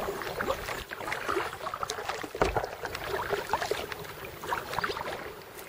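Kayak paddle strokes: the blades dip into the water with small, irregular splashes and drips.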